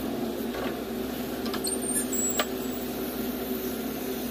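JCB 3DX backhoe loader's diesel engine running steadily as the backhoe arm swings its bucket into place, with a few light clicks and one sharper knock about two and a half seconds in.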